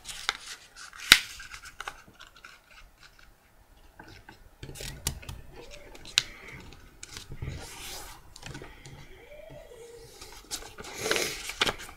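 A sheet of paper being folded and creased by hand on a wooden table: scattered rustles, scrapes and taps, with one sharp tap about a second in.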